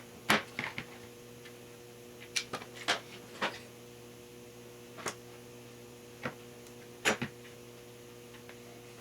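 Short sharp metal clicks and clinks at irregular intervals, strongest in the first three seconds and again around seven seconds in, as rockers and pedestals are handled and slid onto a Triumph TR6 rocker shaft. A faint steady hum runs underneath.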